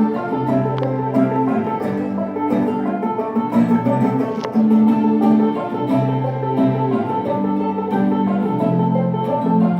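Live instrumental tune on banjo and mandolin, fast plucked notes over held lower notes.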